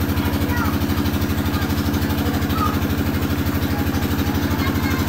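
A small engine or motor running steadily with a fast, even pulse and a low hum, unchanging throughout.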